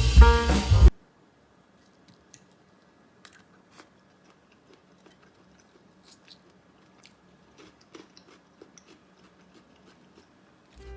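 Background music with a drum beat stops about a second in. After that come faint, irregular crunches and chewing of a mouthful of raw salad vegetables close to the microphone. The music returns at the very end.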